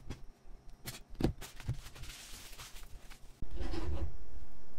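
Kitchen knife slicing raw salmon on a plastic cutting board: soft cutting and scraping with several light taps of the blade on the board. About three and a half seconds in, a much louder steady sound cuts in abruptly.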